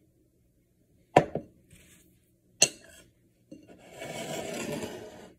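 A metal spoon strikes a ceramic bowl of baked beans twice, two sharp clinks with a short ring, then scrapes through the beans for about two seconds.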